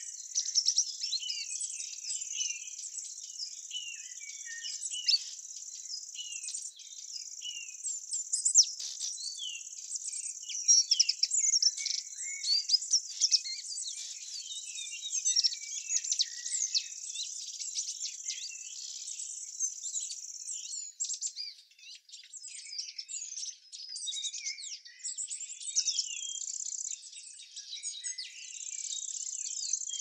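Outdoor nature ambience: a steady, high-pitched insect drone with many small birds chirping and twittering over it. The insect drone breaks off for a few seconds about two-thirds of the way in, then returns.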